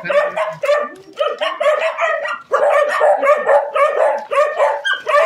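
Many dogs barking together in a crowded space, a continuous run of rapid, overlapping barks and yips.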